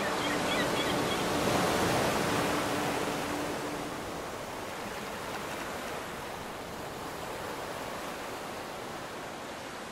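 Ocean surf breaking on the shore: a steady wash of noise that eases slightly after the first couple of seconds.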